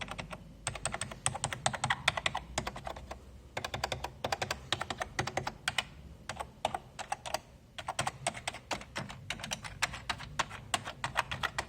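Keys of an old computer keyboard clicking under rapid typing in bursts, with a few short pauses. The keys are being hammered to test whether the salvaged keyboard registers on the computer.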